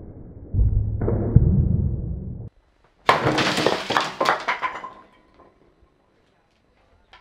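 A wooden baseball bat striking a concrete block: a sudden crash about three seconds in as the block breaks, followed by a couple of seconds of clattering pieces. Before it there is a low rumble that stops abruptly.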